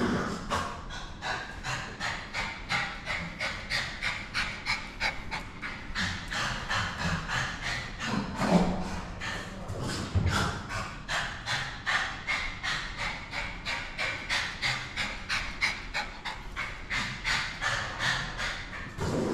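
Small dog, a Lhasa Apso, panting rapidly and steadily, about three breaths a second. A couple of louder, lower sounds come about halfway through.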